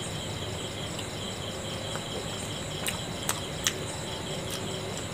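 Someone chewing a bite of steamed momo dumpling, with a few sharp mouth clicks near the middle. Behind it, steady high insect chirping pulses evenly.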